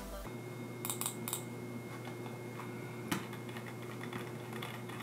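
Dell WM326 wireless mouse being handled and clicked: a quick run of three light clicks about a second in, then one sharper click about three seconds in, over a steady low hum.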